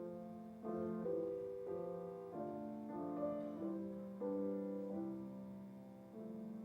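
Soft, slow piano music: chords struck one after another, each left to fade before the next.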